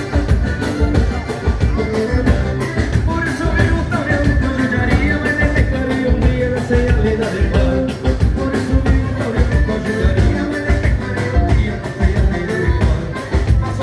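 Live gaúcho dance band playing a vanerão, with a steady, driving drum beat under sustained melodic lines.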